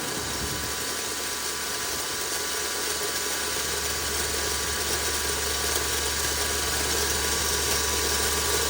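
Suzuki Vitara 1.6 VVT petrol engine idling steadily, with a grinding noise that the owner suspects comes from the air-conditioning compressor.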